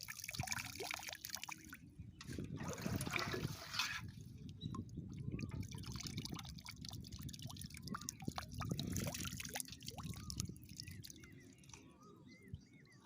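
Water splashing, sloshing and dripping in irregular bursts, loudest about two and a half to four seconds in and again around nine seconds.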